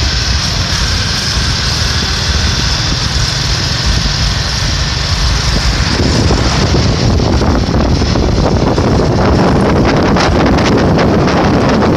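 Wind buffeting a phone's microphone on a moving motorcycle, over the rumble of the bike's engine and road noise. The buffeting grows rougher and a little louder about halfway through.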